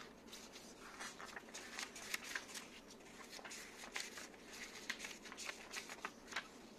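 Pages of a small paper instruction booklet being leafed through by gloved hands: faint, irregular paper rustles and flicks.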